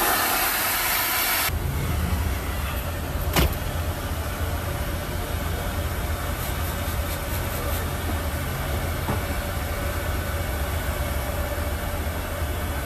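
A spray of water hisses and cuts off abruptly about a second and a half in. A steady low rumble of a motor vehicle running follows, with one sharp knock about three and a half seconds in.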